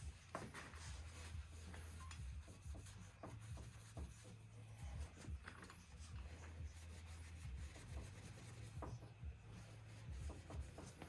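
Faint rubbing and handling sounds of a rag wiping down a motorcycle wheel rim to clean it with alcohol before the balancing weights go on, over a steady low hum.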